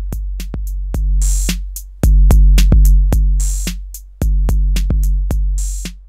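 808 drum-machine loop played through the Elektron Analog Heat MKII's Saturation (tape saturation) circuit. Deep booming kicks, loudest about two seconds in, sit under a steady run of ticking hats at about four a second, with short pitched low notes and a bright snare-like hit about every two seconds.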